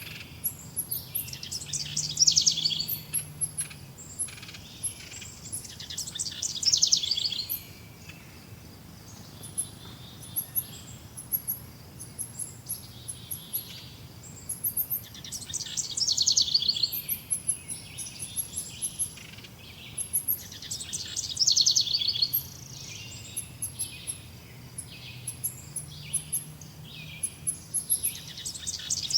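Several birds singing and calling. A louder trilled song comes back every five to ten seconds, with short high chirps throughout.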